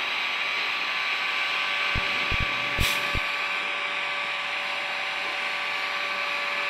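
Stationary train at a platform making a steady whirring drone with several fixed tones, which the spotter guesses is a pre-cooler rather than a traction motor. A few brief low knocks come between about two and three seconds in.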